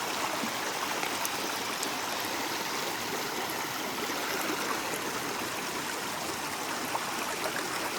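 Steady rushing of a stream cascading over rocks between the tiers of a waterfall.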